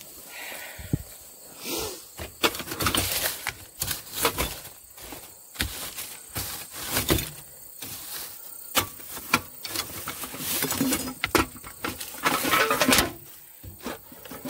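Rummaging among objects in a car being cleared out: repeated rustling, knocks and clatter as items are handled and moved.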